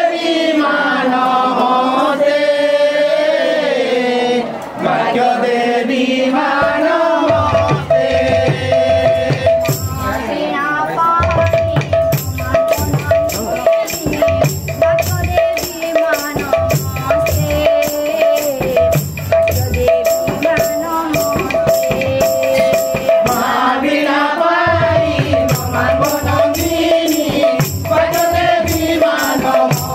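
A kirtan group of men and women singing a devotional chant together. About seven seconds in a barrel drum joins with low strokes, and from about twelve seconds in a hand-shaken ring of small jingle cymbals keeps a steady beat.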